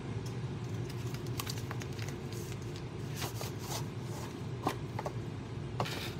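Scattered light clicks, taps and rustles from ingredients, packaging and utensils being handled during cooking prep, over a steady low hum.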